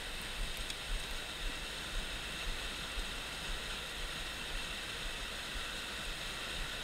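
Creek water rushing steadily over a small rock cascade into a pool.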